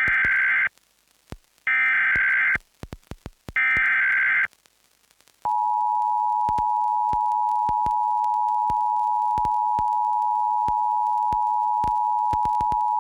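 Emergency Alert System header: three bursts of SAME data tones about a second apart, then the two-tone EAS attention signal (853 and 960 Hz together) held steady from about five seconds in. Faint clicks are scattered throughout.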